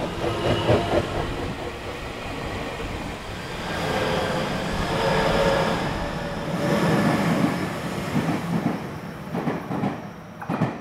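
Tobu Railway 50000 series electric train running past at close range, its wheels clicking over the rail joints over a steady running noise with faint steady tones from its drive.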